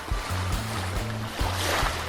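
Background music with a bass line and a steady beat, over sea surf, with a wave washing in near the end.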